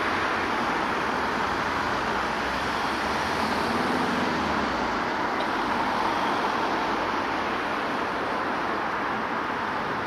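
Steady rushing noise of distant vehicles, even and unbroken, with no siren.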